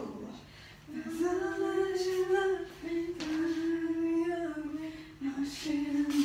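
Young women singing a song's melody unaccompanied, without any recorded music, with long held notes. The singing starts about a second in after a short lull and pauses briefly twice.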